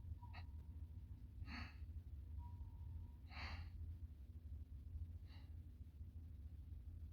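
Faint, short exhalations, three breaths a couple of seconds apart, over a steady low hum.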